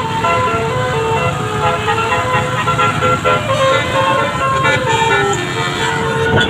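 Bus's Basuri musical air horn playing a tune: a run of held horn notes that step from pitch to pitch.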